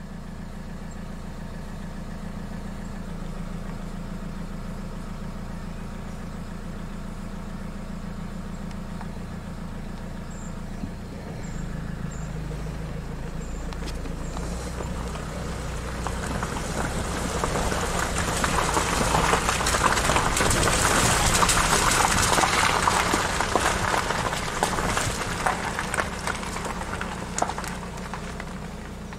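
A vehicle engine running steadily, its low drone growing heavier about eleven seconds in. From about halfway, a loud crackling rush of noise builds, peaks and fades again near the end.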